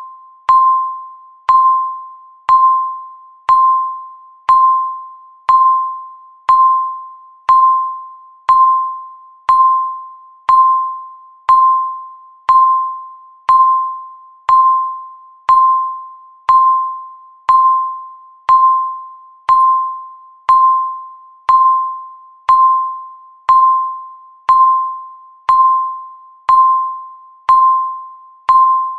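Countdown timer beep marking each second: a short electronic tone struck once a second, each starting sharply and fading away, in a steady, even rhythm.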